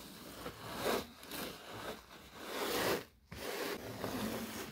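A paper towel being rubbed and scraped across the floor tray of a wire pet crate, in a series of wiping strokes.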